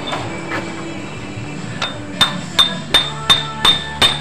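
Metal lathe running while a twist drill bores into a steel workpiece in the four-jaw chuck, with a steady motor hum. About halfway through, a regular ringing metallic clink comes in, about three a second.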